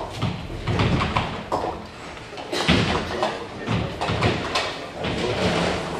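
Nine-pin bowling alley: a string of thuds and knocks as balls land and roll on the lanes and strike the pins, with impacts coming about every half second to a second from several lanes.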